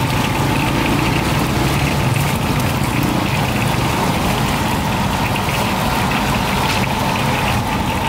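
An engine running steadily under a constant hiss.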